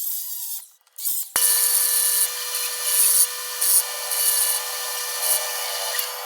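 Angle grinder with a thin cut-off (zip) disc cutting steel. After a short gap about a second in, it starts sharply: a steady motor whine with a hissing grind that swells several times as the disc bites.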